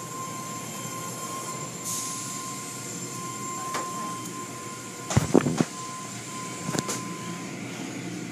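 Automatic tunnel car wash machinery running: a steady mechanical whir with a thin high whine and a hiss of water spray. A few sharp knocks and clatters come about five seconds in and again near seven seconds.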